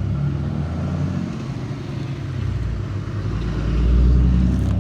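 A motor vehicle engine running with a steady low hum, getting louder near the end.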